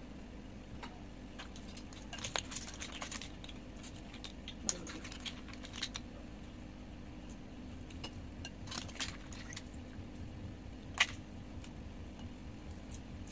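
Scattered small clicks and clinks of eating: a spoon tapping against a bowl and shrimp shells being cracked and peeled by hand, the sharpest click about eleven seconds in. A steady low hum runs underneath.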